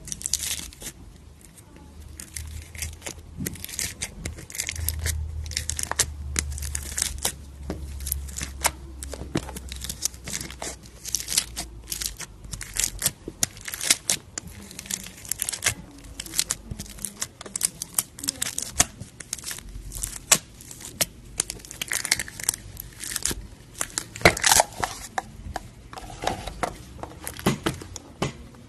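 Fingers pressing and squeezing clear slime full of foam beads, making a dense run of irregular small crackles and pops.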